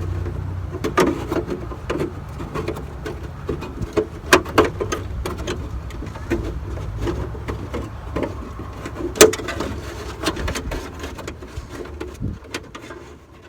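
Wiring harness being pulled through the wire passage of a car's trunk lid: scattered clicks, knocks and rubbing over a low rumble, fading out near the end.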